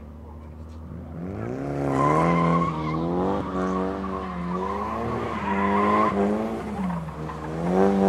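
Nissan S14 drifting. Its engine revs up hard about a second in, then rises and falls repeatedly as the throttle is worked through the slide, while the tyres squeal. The revs climb again near the end.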